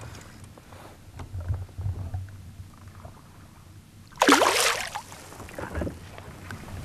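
A hooked Kamloops rainbow trout splashing at the surface beside the boat: one loud splash a little over four seconds in and a smaller one near six seconds, over a low steady rumble of wind and water.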